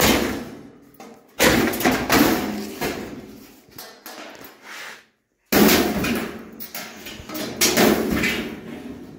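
A painted sheet-metal light-fixture housing being handled and knocked about, giving loud clattering bangs that fade away. The first starts about a second and a half in, the second about five and a half seconds in, after a brief cut-out.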